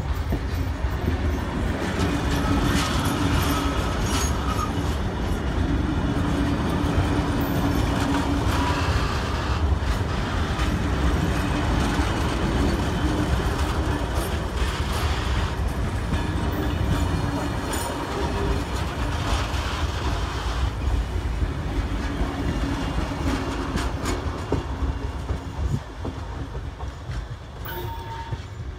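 Heritage passenger carriages rolling past close by, wheels clacking over rail joints with a steady rumble. The sound drops away near the end as the last carriage moves off.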